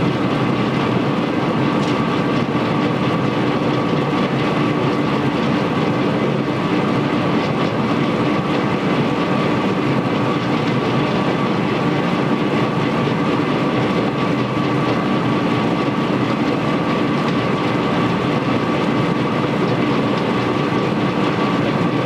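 Ferrara MX LP220 abrasive potato washer-peeler running loaded: potatoes tumbling and knocking over the turning abrasive rollers under water spray, a steady dense rattle with a constant machine hum through it.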